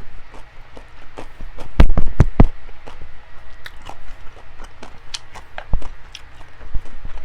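Close-miked eating sounds: chewing and wet mouth clicks in an uneven run of sharp snaps, with a cluster of loud, deep thumps about two seconds in.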